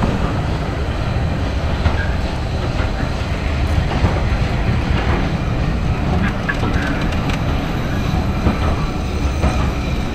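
Vintage passenger coaches rolling slowly past along a station platform: a steady rumble of wheels on the rails with occasional clicks.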